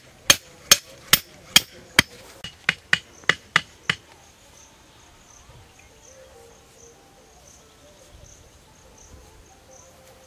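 Bamboo stakes being chopped by hand: about ten sharp wooden strikes, two or three a second, stopping about four seconds in. After that, crickets chirr steadily.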